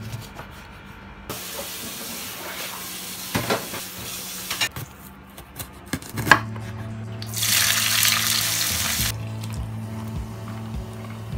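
Kitchen cooking sounds cut together: food sizzling and being stirred in a pan, and a chef's knife cutting through a bell pepper onto a wooden board about six seconds in. This is followed by a louder burst of sizzling lasting about two seconds.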